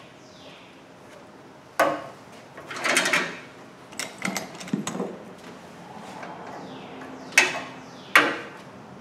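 Hands and a tool fitting a rubber upper radiator hose and its clamp onto a car radiator. There are sharp metal clicks and knocks about two seconds in and twice near the end, a scraping rustle around three seconds, and a cluster of small clicks just after four seconds.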